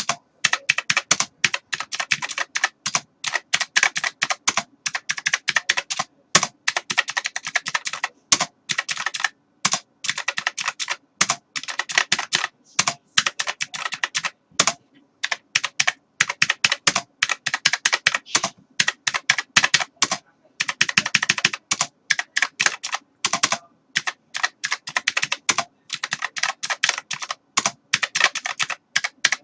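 Typing on a computer keyboard: rapid keystroke clicks in quick runs, broken by short pauses.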